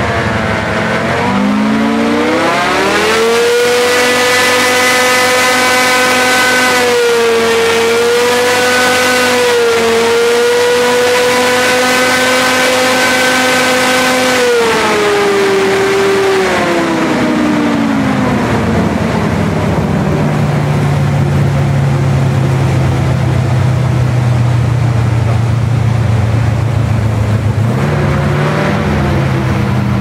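Airboat engine and propeller revving up about two seconds in and holding a high, steady pitch, then throttling back around the middle and settling into a low, steady drone, with a brief blip of throttle near the end.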